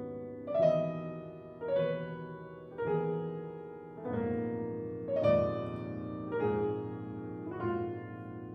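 Grand piano playing a slow solo passage of chords, one struck about every second and left to ring out.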